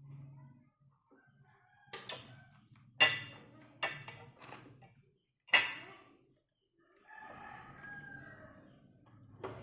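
A rooster crowing in a few loud, broken notes, loudest about three and five and a half seconds in, followed by softer clucking.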